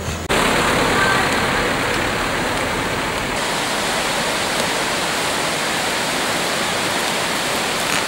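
Steady, even rush of running water. It steps up louder just after the start and turns a little duller a little after three seconds.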